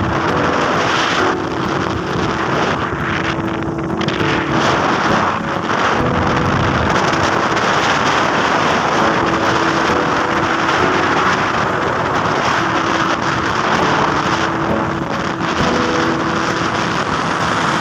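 Steady wind rush on the microphone and road noise from a motorcycle riding along. Faint short steady tones come and go underneath.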